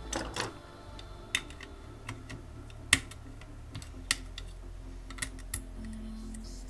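Light, sharp clicks and taps at uneven intervals, about a dozen, from a small circuit board and hand tools being handled on a work surface. A steady low hum runs underneath.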